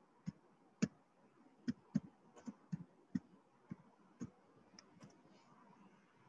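About a dozen light clicks at uneven spacing over the first five seconds, over faint room tone.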